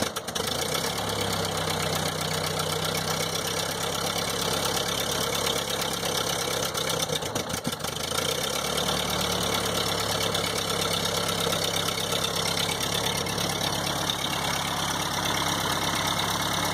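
1952 Ford 8N tractor's four-cylinder flathead gasoline engine idling steadily, running freshly after a cold start at −21 °C.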